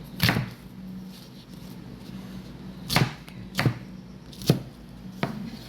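Five irregular, sharp knocks of kitchen food preparation, utensils striking a board or bowl, over a steady low hum.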